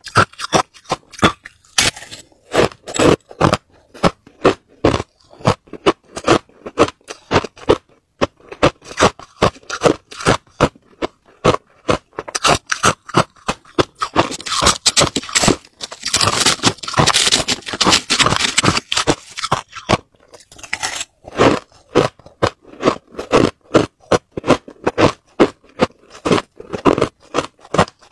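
Crushed white ice being bitten and chewed, with sharp crunches several a second. Midway there is a longer, denser stretch of a metal spoon scraping and digging through the crushed ice in its plastic bag.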